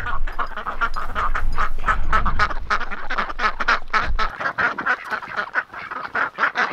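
A flock of Khaki Campbell ducks quacking, many short calls in quick succession, overlapping into a steady chatter.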